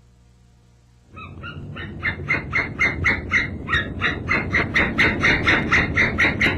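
Recorded jungle animal-call sound effect from a Jungle Cruise boat ride: a rapid, evenly repeated bird-like call, about three or four calls a second, starting suddenly about a second in over a low rumble and growing louder.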